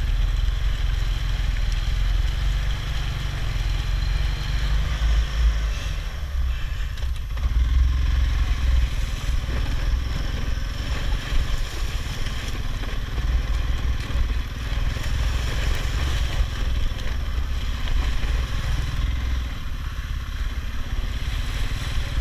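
All-terrain vehicle engine running steadily while under way, with a strong low rumble throughout.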